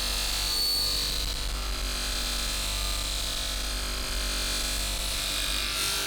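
An electric power tool running steadily, with a constant hum and a thin high whine.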